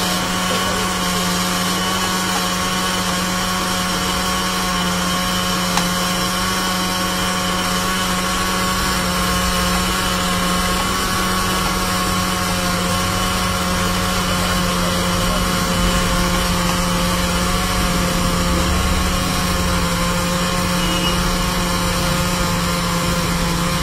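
Electric countertop blender motor running steadily at one speed, blending a liquid lemon drink.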